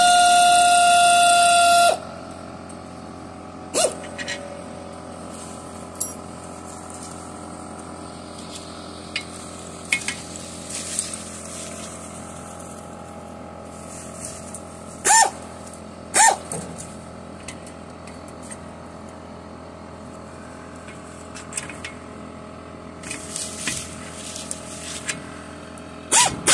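Pneumatic air ratchet running with a steady high whine for about the first two seconds, then cutting off. Scattered short metallic clicks and clinks follow as tools and parts knock against the leaf spring and its mounting, and the air tool starts whining again at the very end.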